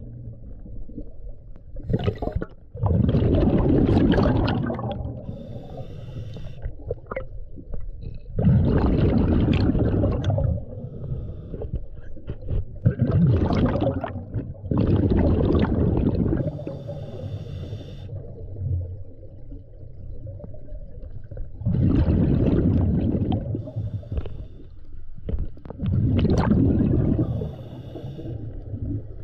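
A scuba diver breathing through a regulator underwater: about six bubbling exhalations, each lasting a couple of seconds, with quieter hissing inhalations carrying a thin whistle between them.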